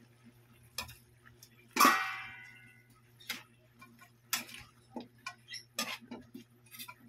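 Metal ladle knocking and scraping against a metal wok while stirring chunks of chicken, potato and carrot. One loud ringing clang comes about two seconds in, followed by several lighter knocks.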